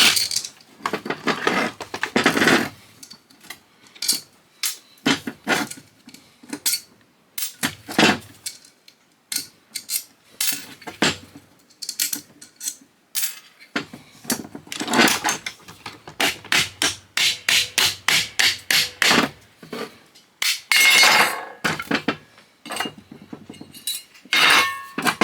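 Hammer blows on the metal parts of an old Cuisinart food processor's motor, knocking it apart to reach the windings. The blows come irregularly, some singly and some in quick runs of several a second.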